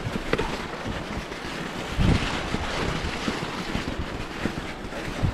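Mountain bike riding down a snowy, icy trail: wind buffeting the microphone, with the bike rattling and knocking over bumps, the hardest knock about two seconds in.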